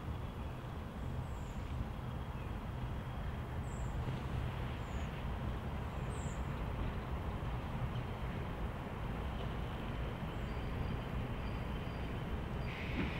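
Diesel locomotive running with a steady low rumble as it approaches slowly, growing slightly louder, with a few small birds chirping. A higher hiss starts just before the end.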